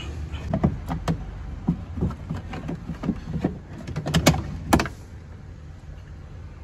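Knocks, clacks and rattles of a Volkswagen Vento's plastic boot trim panels being handled and worked loose, a string of short hits with the two loudest clacks about half a second apart a little after four seconds in. The handling stops about five seconds in.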